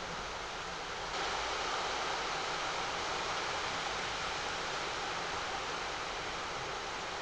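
Steady hiss of falling rain, which suddenly gets louder about a second in and then holds even.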